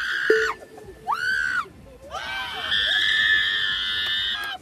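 Men screaming with excitement on a thrill ride: two short yells, then a long, high, held scream from about two seconds in that stops just before the end.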